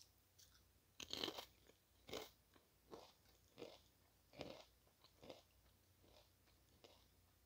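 A person bites into a potato chip with a loud crunch about a second in, then chews it in a string of crisp crunches, one about every 0.7 s, that grow fainter toward the end.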